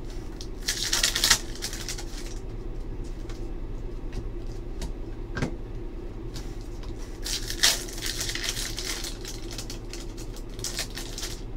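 Trading cards being flipped through by hand: a few short bursts of sliding and flicking card rustle, with a single click in the middle.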